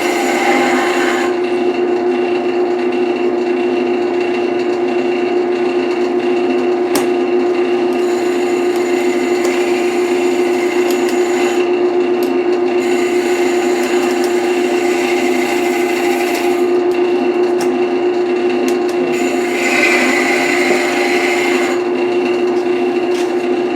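Wood lathe running with a steady motor hum while a turning tool cuts the spinning wood blank, the scraping hiss of the cut fading and returning several times as the tool comes on and off the wood. A single sharp click about seven seconds in.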